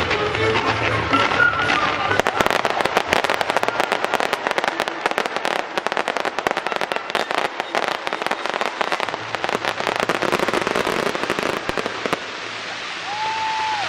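Fireworks crackling: a dense, rapid run of small pops and crackles from many bursts that starts about two seconds in and cuts off shortly before the end, over music at the start.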